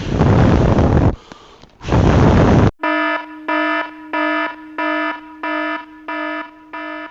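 Two loud blasts of wind buffeting the microphone, then an electronic alarm starts beeping steadily about three seconds in. The beeps are buzzy, about eight of them, a little over one and a half a second.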